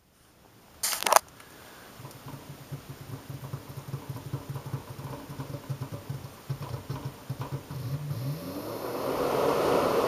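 Goodman variable-speed air handler's ECM blower motor starting up: a short clatter about a second in, then an uneven pulsing hum while the motor hesitates, before it ramps up near the end with a rising whine and a growing rush of air. The hesitation is taken as a possible sign of the motor's control module being damaged by standing water.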